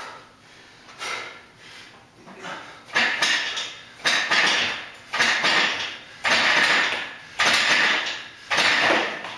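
Kipping chest-to-bar pull-ups on a steel power rack: the rack rattles and clanks with each rep, about once a second, much louder from about three seconds in.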